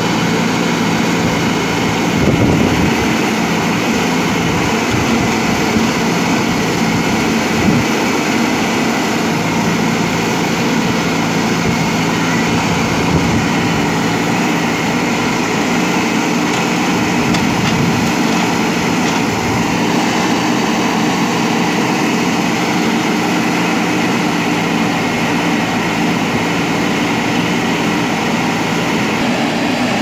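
JCB backhoe loader's diesel engine running steadily, its pitch even throughout.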